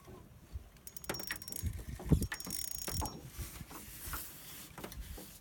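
Fishing reel being cranked as a hooked lake trout is played in, with scattered mechanical clicks and knocks.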